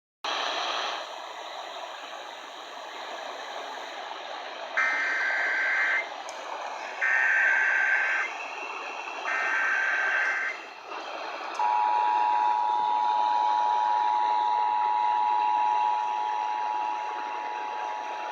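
Emergency Alert System test received over a hissy, weak radio signal: three short bursts of screeching SAME header data, then the steady two-tone EAS attention signal starting about 11 seconds in.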